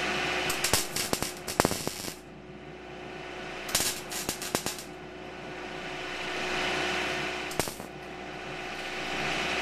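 MIG welder laying short welds on steel tubing: bursts of rapid crackling, the first about two seconds long, a second about a second long near the middle, and a brief one later, over a steady machine hum.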